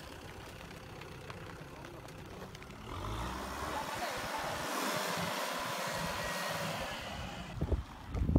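Kubota M6040SU tractor's diesel engine running as it works through mud and loose soil. A louder rushing hiss rises about three seconds in and lasts for several seconds, and uneven low buffeting near the end sounds like wind on the microphone.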